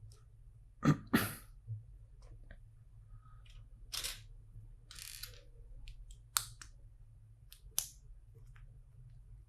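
LEGO bricks being handled and pressed together: a handful of sharp plastic clicks spread out, the loudest pair about a second in, with a short rustle in the middle.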